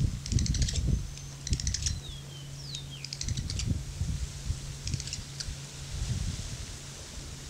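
Tree swallows giving bursts of rapid, dry clicking calls, four or five short runs, with two brief falling whistled notes a couple of seconds in; the clicking is the call that goes with their mating on the nest box. Low rumbling sits underneath.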